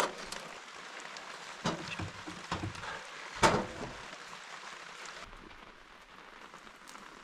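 Rain pattering steadily, with a few sharp knocks or clinks, the loudest about halfway through; the patter turns quieter after about five seconds.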